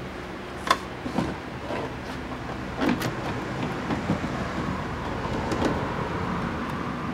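Scattered plastic clicks and knocks of a car taillight housing being pulled and worked loose by hand, sharpest about a second in and again around three seconds, over a steady low hum.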